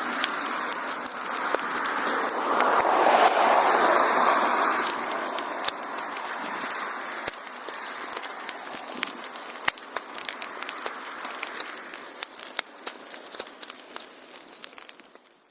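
Wood fire crackling: a rushing hiss of flames with many sharp pops and snaps, the hiss strongest in the first few seconds, then the whole sound fading out near the end.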